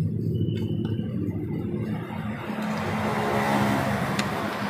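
A motor vehicle engine running steadily, growing louder and noisier about halfway through. A single sharp click comes near the end.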